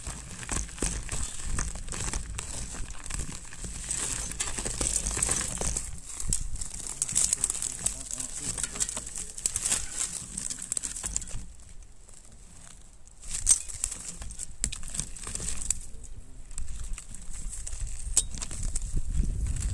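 Mountain bike tyres crunching over snow, with irregular clicks and rattles from the bike and a low rumble, easing off for about two seconds past the middle before a sharp click.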